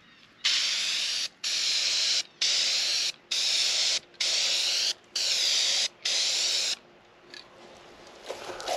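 Aerosol can of black spray paint spraying a light first dusting coat onto a cast intake plenum, in seven short hissing bursts with brief pauses between them.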